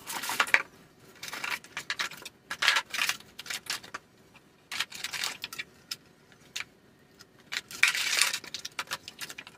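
Cardboard box and moulded pulp packaging rustling and scraping in irregular bursts, with small knocks, as a router and its cable are lifted out of the box. The loudest handling comes right at the start and again about eight seconds in.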